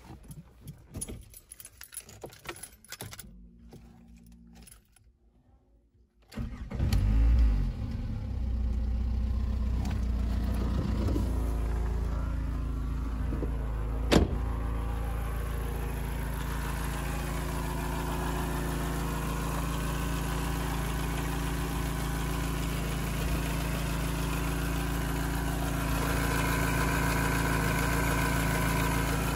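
Škoda Fabia 1.4 MPI four-cylinder petrol engine being started for the first time after its oil and filter change: a few small key rattles, then the engine catches about six seconds in, flares briefly and settles into a steady idle. One sharp click sounds partway through the idle.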